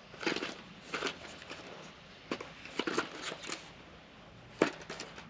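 Rustling and small clicks of accessory packaging being handled and opened, with one sharper click near the end.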